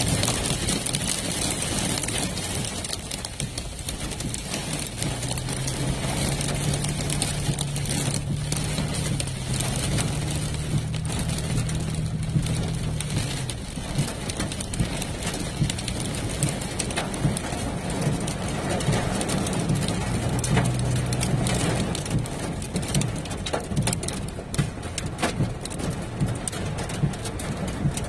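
Heavy rain pounding on a vehicle's roof and windshield, heard from inside the cab, over the low hum of its engine. In the second half, sharp ticks come more and more often.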